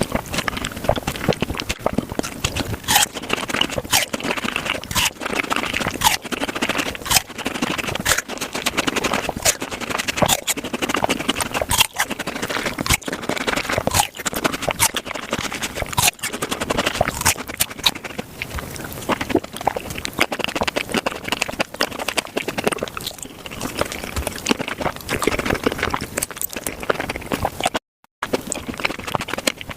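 Close-miked fruit eating, sped up: a fast, dense run of crisp bites, crunching and wet mouth clicks. A brief cut to silence comes about two seconds before the end.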